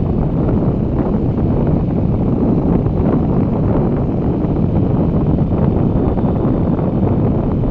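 Steady wind buffeting on the microphone of a camera moving along a road, a loud, even rumble with no distinct engine note.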